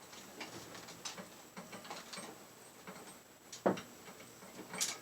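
Scattered light clicks and taps of computer cables and a KVM switch being handled and tugged free of tangled wires, with a sharper knock about three and a half seconds in and a high click near the end.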